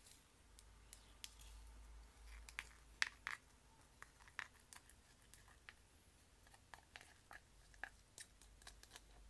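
Layered clear slime being handled, giving quiet, irregular sticky clicks and small pops, a little louder and busier around the middle.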